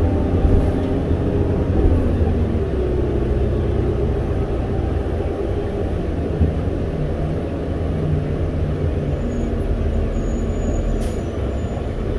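Interior of a New Flyer C40LFR compressed-natural-gas city bus on the move: a steady low engine and road rumble. A faint whine glides down in pitch in the first couple of seconds, and a short sharp click comes near the end.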